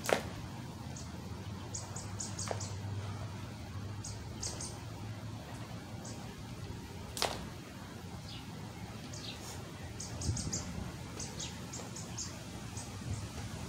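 Small birds chirping in short, high bursts, in clusters throughout. A jump rope slaps the pavement once sharply at the start, and there is another sharp tap about seven seconds in.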